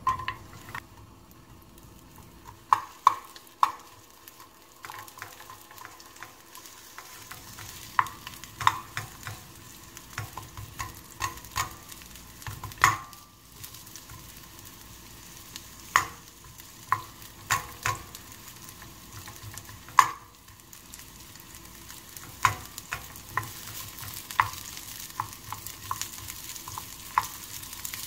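Sliced onion frying and sizzling in oil in a nonstick pan, with a wooden spatula knocking and scraping against the pan as it is stirred at irregular intervals. A clatter as the onion drops in at the start; the sizzle grows stronger in the second half.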